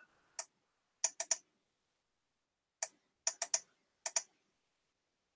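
Sharp clicks of a computer mouse and keyboard, about ten in all, some alone and some in quick runs of two or three, with silence between.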